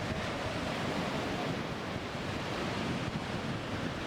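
Sea surf breaking on a beach in a strong wind, with the wind buffeting the microphone in a steady rush.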